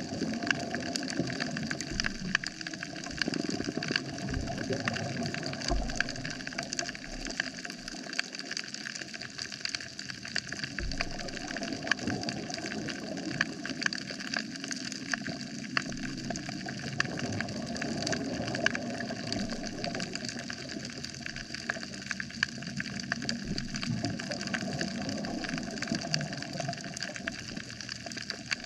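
Underwater ambience on a coral reef: a dense, steady crackle of many tiny clicks over a hiss, with a few brief low thumps.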